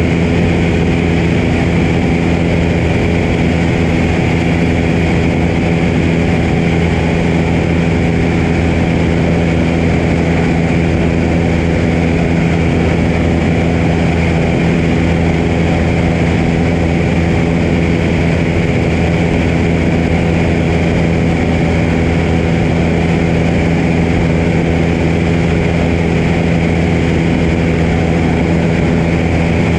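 Piper PA-22 floatplane's single piston engine and propeller running steadily in flight, a constant drone with no change in pitch, heard from a camera mounted outside on the float.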